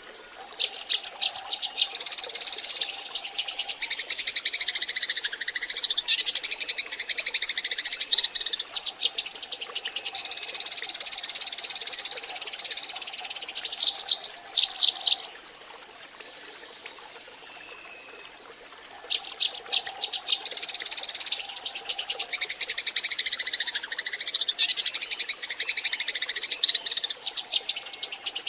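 A flock of Eurasian tree sparrows chattering with fast, dense high chirps, in two long bouts with a quiet pause of a few seconds about halfway through.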